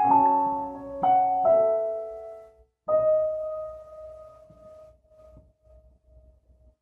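Soft background piano music: a few notes struck one after another, then a last note that rings out and fades away to near silence.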